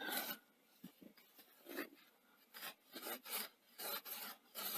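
Scotch-Brite abrasive pad rubbing on a VCR's aluminium upper head drum, resurfacing it: a series of short, irregular scratchy strokes.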